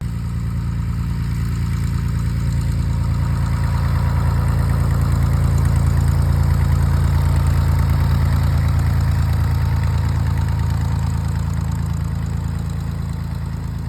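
Cessna 172B's piston engine running steadily at low speed. It cuts in abruptly, grows a little louder toward the middle and eases near the end.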